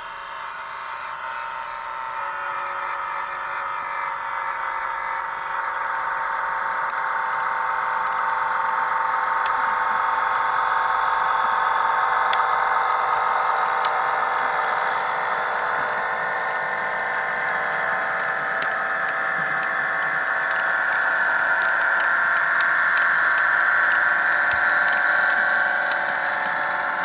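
OO gauge model train running along the track: a steady electric motor hum with wheel noise, growing louder as it passes, with a few faint clicks.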